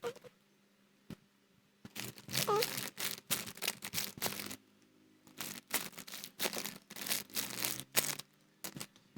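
A squishy being handled, crinkling and rustling in two stretches of quick crackles, the first about two seconds in and the second from about five and a half to eight seconds.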